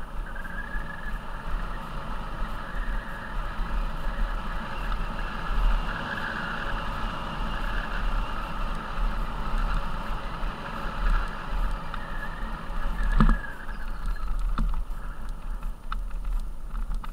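Mountain bike tyres rolling over a gravel track on a fast descent, with wind rumbling on the microphone. A single sharp knock about thirteen seconds in.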